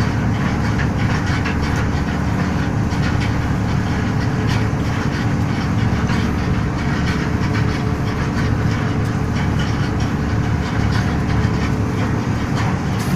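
Crab fishing boat's machinery running steadily while hauling in rope: a constant engine drone with a dense rattling clatter on top.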